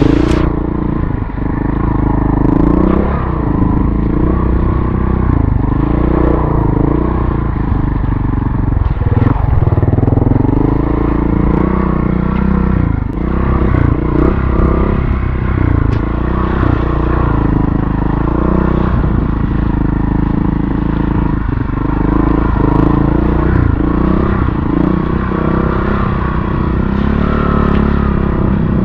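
Montesa Cota 4RT trials motorcycle's four-stroke single-cylinder engine running at low revs under constant small throttle changes, its pitch rising and falling with brief dips as the throttle is chopped.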